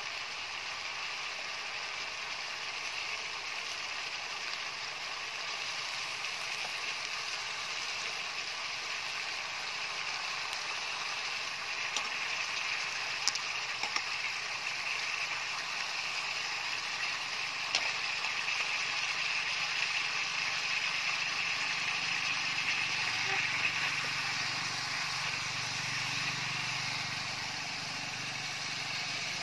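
Chicken and bamboo shoots sizzling in an aluminium wok on a portable gas stove, a steady hiss. About halfway through, a metal spatula clinks a few times against the wok as the food is turned.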